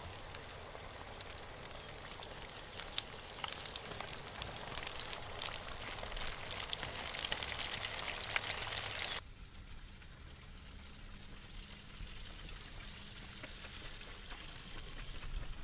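Frog legs deep-frying in an electric deep fryer: the hot oil sizzles and crackles with many fine pops, growing a little louder. After about nine seconds it cuts off suddenly to a much quieter background.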